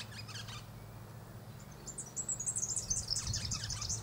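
A bird calling: a quick run of high chirps at the start, then a longer rapid series of high twittering notes from about two seconds in, the loudest part, over a low steady hum.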